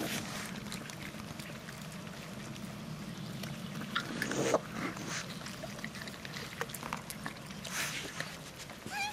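Young raccoons feeding together: scattered short clicks of chewing, smacking and scuffling over a steady low hum, with a louder rustle about halfway. Near the end comes a short, high pitched call.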